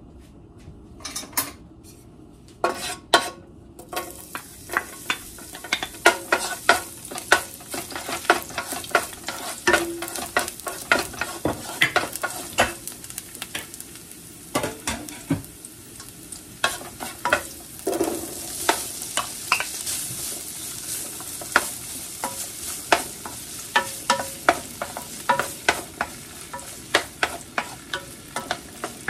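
Oil sizzling in a nonstick pan as chopped garlic and diced pieces fry, with a wooden spatula knocking and scraping against the pan again and again. The sizzle builds about four seconds in and then holds steady.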